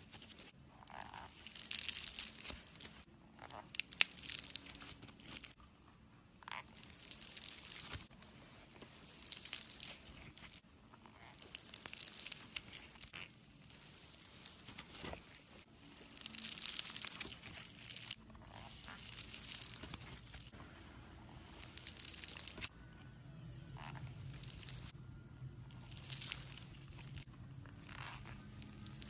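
Foam slime packed with tiny beads being stretched, pulled apart and squeezed by hand, giving bursts of fine crackling and crunching every second or two.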